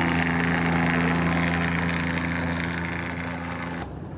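Motorboat engine running steadily under way, a low, even hum with a rush of hiss over it. It drops away sharply near the end.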